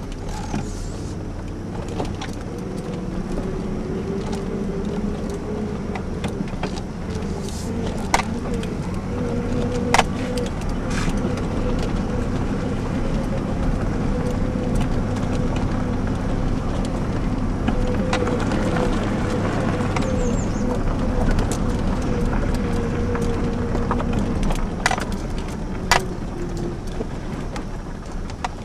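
2002 GMC Sonoma ZR2's 4.3-litre V6 running under steady load as the truck drives a dirt trail, heard from inside the cab. A few sharp knocks come through over the bumps.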